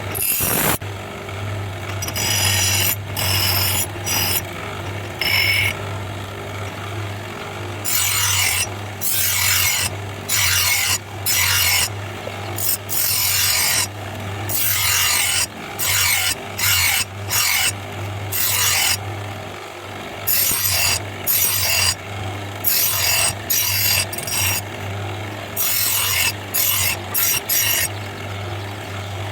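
A file rasping on a steel knife blade in repeated hand strokes, over a steady low hum.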